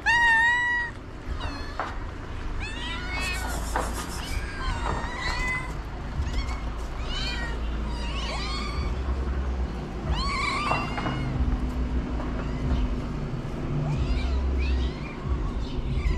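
Hungry cats and kittens meowing again and again, begging for food, with the loudest meow right at the start.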